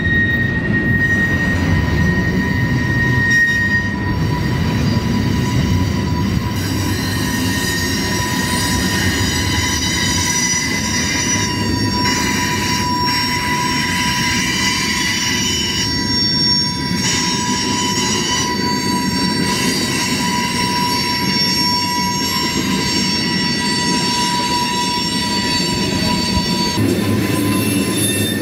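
Freight train wheels squealing as a manifest's cars roll through the tight curve of a track wye, with several steady high tones over the low rumble of the passing cars.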